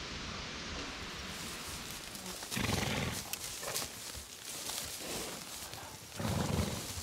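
An equine animal gives two short, noisy blows about three and a half seconds apart, over a steady rustling hiss.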